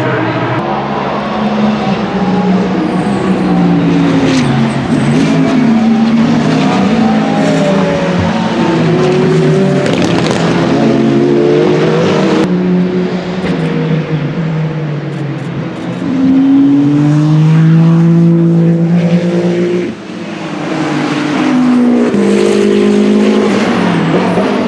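Several race cars passing one after another at speed, their engines rising and falling in pitch as they go by and shift gear, often overlapping. The loudest pass comes near the end and drops away suddenly.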